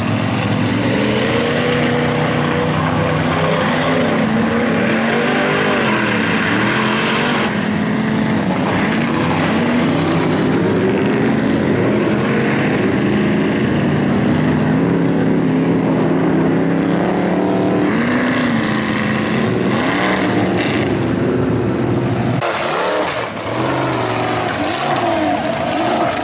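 Ford F-350 mega mud truck's engine revving hard through open bull-horn exhaust stacks as it churns through a mud pit, the engine note rising and falling again and again. About 22 seconds in the sound cuts abruptly to another mud truck engine running.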